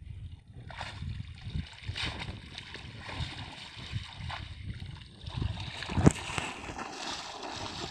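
Water sloshing and splashing around legs wading through shallow water and a heavy wet cast net being hauled up, with irregular small splashes and one louder splash about six seconds in.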